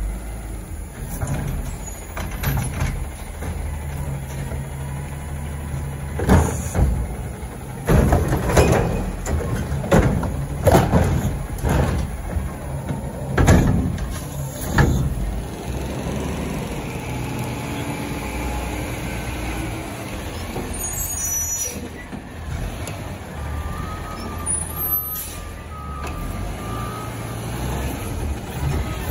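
Front-loading garbage truck with a Curotto-Can arm, its diesel engine running steadily while the hydraulics work. Through the middle come a series of loud bangs and clatters as carts are emptied and the can is handled, with air-brake hissing and a beeping tone near the end.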